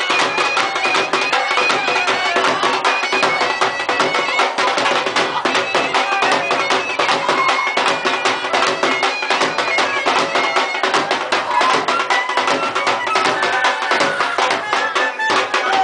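Traditional Punjabi dance music: a fast, steady drumbeat under a reedy wind melody that moves over a held drone.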